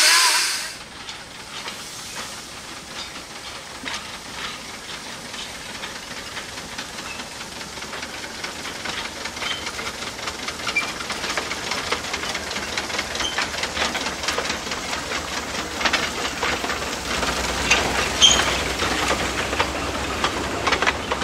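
Replica Climax geared steam locomotive moving off with a short log train: a loud blast of steam stops about half a second in, then steam hissing with a fast run of clicks and knocks from the locomotive and cars that grows louder toward the end as the train rolls past.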